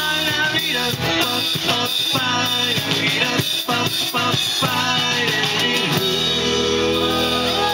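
Live pop-rock band with drums and guitar playing the closing bars of a song, settling into a held final chord about six seconds in.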